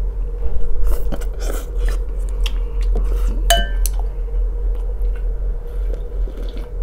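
A person chewing and slurping noodles, with chopsticks clicking against a glass bowl and one ringing clink about three and a half seconds in, over a steady low hum.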